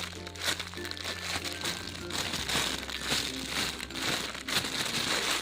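Irregular crinkling and rustling of hands handling a squishy toy, over soft background music.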